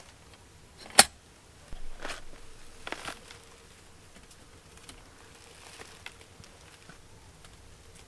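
Handling a metal hurricane lantern: one sharp click about a second in, then a few short rustling scrapes as the lantern is lifted and hung up, with faint small ticks afterwards.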